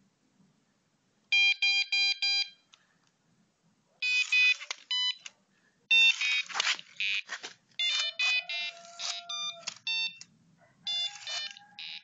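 Arduino-driven buzzer on a homemade robot playing bursts of electronic beeps and short tone sequences, with brief pauses between them. It opens with five quick beeps about a second in, and further groups of beeps and chirps follow.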